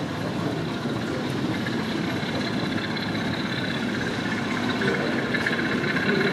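O gauge model diesel locomotive running on the layout, with a steady running sound and a high whine that grows louder toward the end as it approaches.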